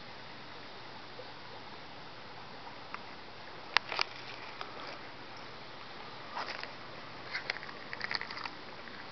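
Steady hiss of creek water over rocks, with one sharp click about four seconds in and a scatter of small clicks and rustles in the last few seconds.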